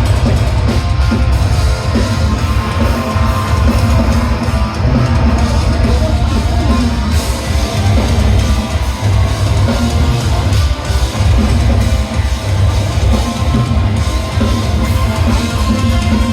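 Rock band playing live, loud and continuous: electric guitar over a drum kit, with no singing.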